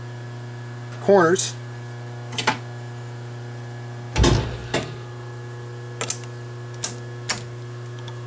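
Steady electrical hum at a lathe, broken by a few light metallic clicks and one heavier thump about four seconds in as a small steel part is handled in the chuck.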